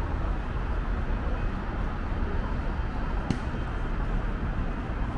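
Steady road traffic noise along a busy city avenue, with one sharp click a little over three seconds in.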